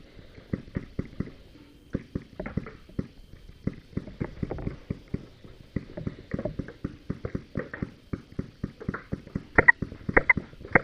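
Paintball markers firing: rapid, irregular pops several times a second. Louder, closer shots come near the end.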